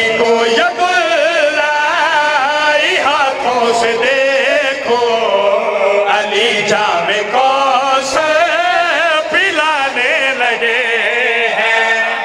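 Several men chanting a devotional verse together in loud voices into microphones, the pitch wavering and swinging throughout.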